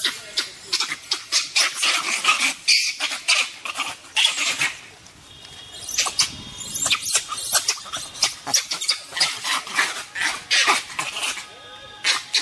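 Animal calls in quick, sharp runs of chattering, with a lull about halfway through.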